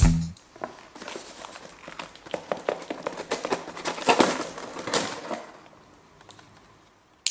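A knife slicing through the packing tape and cardboard of a small box: a run of quick scratchy cuts and crackles, loudest about four to five seconds in, then fading away.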